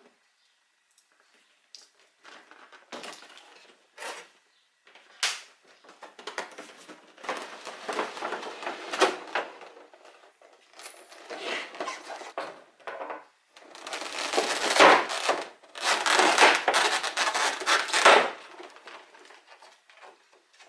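Figure packaging being handled as the figure is taken out of its box: scattered clicks and taps at first, then long stretches of rustling and scraping, loudest a few seconds before the end.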